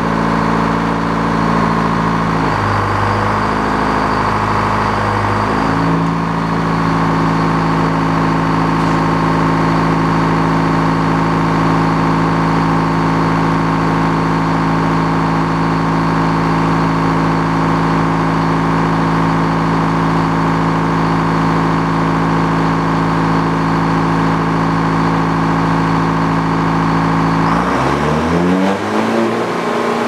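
Detroit diesel engine powering a circle sawmill, running steadily at speed. Its pitch sags for about three seconds early on and then recovers, and near the end it speeds up with a rising pitch.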